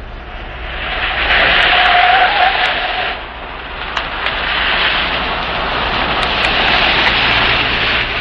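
Cars driving up a road and pulling in, a loud rush of engine and tyre noise that swells about a second in, dips briefly near three seconds, then swells again.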